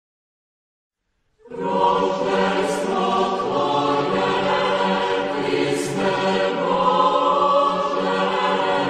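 Church choir singing a chant in sustained chords, many voices together. It comes in about a second and a half in, after a silent start.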